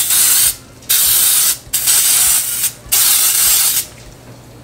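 Aerosol nonstick baking spray hissing from the can in four bursts of under a second each, coating a ceramic baking dish; the spraying stops near the end.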